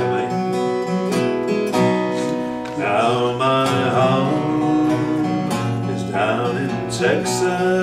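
Acoustic guitar strummed and picked in a steady folk accompaniment, an instrumental passage between verses of the song.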